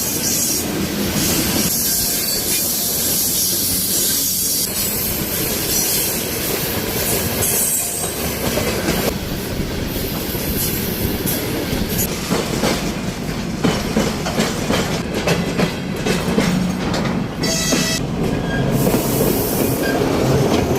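A train running on rails: a steady loud rumble of the cars, with wheels clattering over rail joints, the clicks thicker in the second half.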